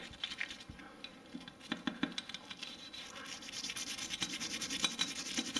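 A nylon brush scrubbing a Glock 19's steel slide and slide rails. Quick, irregular scratching strokes that grow denser and louder in the second half.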